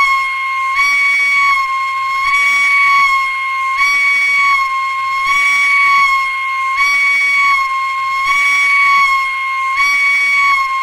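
Indonesian railroad crossing siren sounding a loud, continuous warning tone that alternates between two close pitches, switching about every three-quarters of a second.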